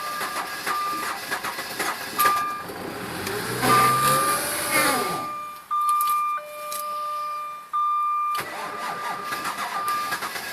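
Jaguar S-Type 3.0 V6 being cranked in extreme cold, hard to start: about four seconds in the engine briefly catches and rises in pitch, then falls away, with the car's warning beep sounding on and off. The owner puts the hard starting down to fuel injectors that need cleaning.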